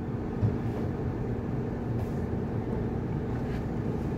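Suzuki Liana engine idling steadily with the air conditioning on, heard from inside the cabin as a steady low hum.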